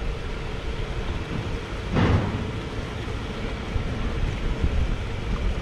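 Wind buffeting the microphone as a low, uneven rumble, with a short louder rush of noise about two seconds in.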